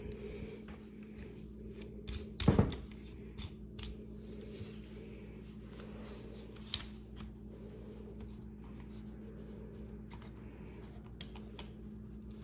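Small metal tools clicking and scraping against a pistol slide during rear-sight installation, with one sharp knock about two and a half seconds in. A steady low hum runs underneath.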